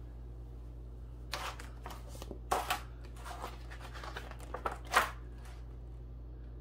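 A paper instruction sheet rustling and crinkling as it is picked up and handled, in several short bursts, the loudest about five seconds in.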